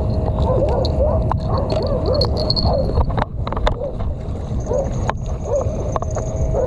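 Water sloshing and a low rumble of wind on the microphone at the shoreline, under a steady chorus of short repeated chirping calls and a few sharp clicks.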